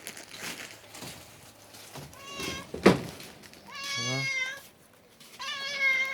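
Domestic cat meowing three times, the last meow long, as she begs for food. A single sharp tap sounds between the first two meows.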